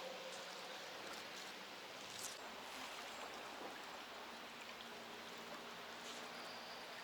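Faint steady outdoor ambience: an even hiss with a few faint, short, high chirps.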